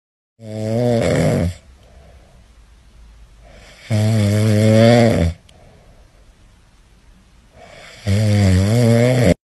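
Small dog snoring while asleep on its back: three long, loud, pitched snores about four seconds apart, with faint breathing between them.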